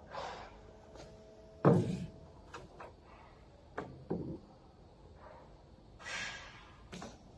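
Long metal bars being handled and laid down on a wooden pallet: one loud knock with a short metallic ring about two seconds in, two lighter clunks around four seconds, then a brief rustle and a click near the end.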